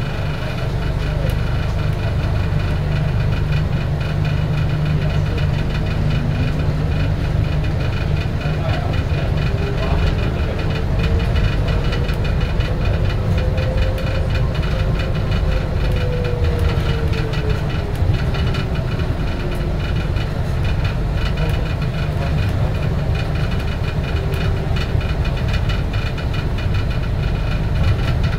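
Bombardier Innovia APM 100 rubber-tyred people-mover car running along its guideway: a steady rumble with high steady tones, and a whine that rises in pitch for several seconds and then falls.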